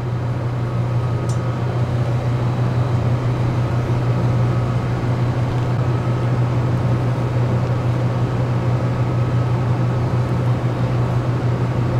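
Steady low drone of a boat's onboard machinery heard inside the cabin: a constant deep hum over a rough, even rumble.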